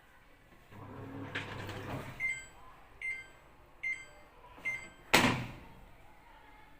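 Fully automatic top-load washing machine giving four short electronic beeps, evenly spaced, after a low hum, then one loud clunk about five seconds in, as the machine moves from washing to draining.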